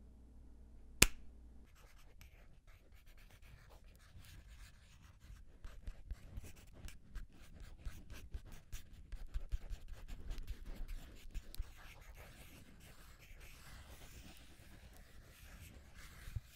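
A single sharp click about a second in, then a long run of rapid crackling and rustling of paper tissues being waved, busiest in the middle.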